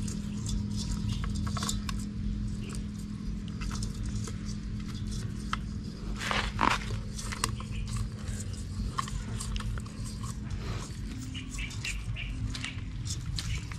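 Rustling of a nylon mesh folding fish-trap net being worked by hand, with scattered light taps and clicks as small fish are picked out into a metal bowl, the sharpest about halfway through. A steady low hum runs underneath.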